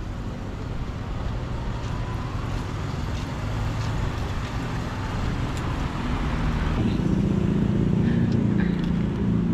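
Road traffic going past, with the engine of a motor vehicle growing louder and closer near the end.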